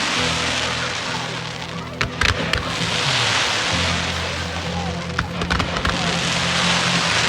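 Fireworks display soundtrack music with long held bass notes, over the swelling hiss and crackle of fireworks and a few sharp bangs.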